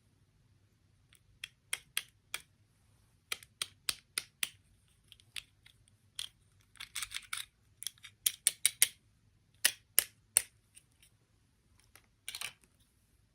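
Irregular sharp clicks and taps, some in quick runs, with two short rustles, about seven seconds in and near the end.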